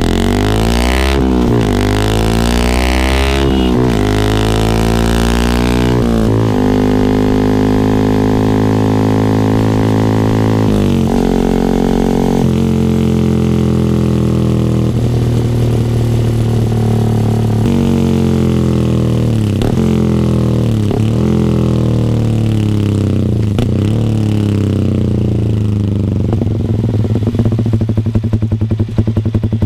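Yamaha R15 V3's single-cylinder engine revving through an R9 GPX-SS full-system aftermarket exhaust. Several quick revs come first, then high revs held for several seconds. The engine then drops back to a lower steady note with short throttle blips every second or two.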